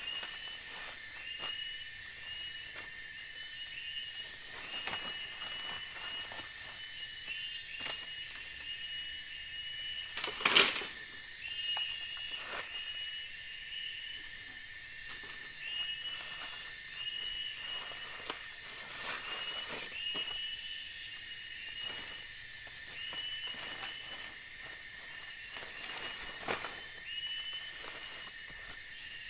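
Forest insects keep up a steady high buzzing chorus, with a short chirping call repeating about once a second. A few knocks break in, the loudest about ten and a half seconds in.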